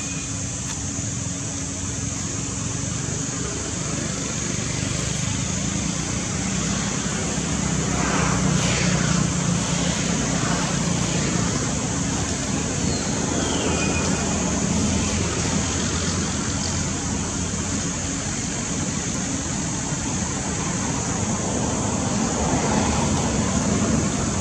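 Outdoor background noise: a steady low rumble like distant road traffic under a constant high hiss, with a brief falling chirp about halfway through.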